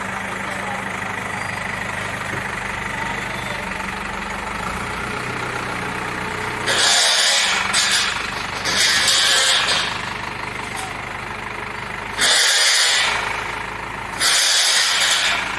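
Cat 424B backhoe loader's diesel engine running steadily, overlaid in the second half by four loud, harsh bursts of noise of about a second each.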